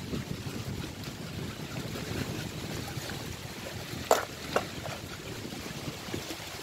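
Wind on the microphone and small waves washing against shoreline rocks, with two sharp clicks a little after four seconds in, about half a second apart.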